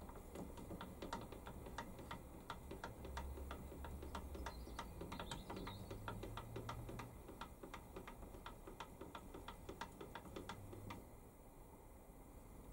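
Warco WM180 lathe carriage being hand-wound along the bed, giving a steady light ticking of about four clicks a second that stops about eleven seconds in.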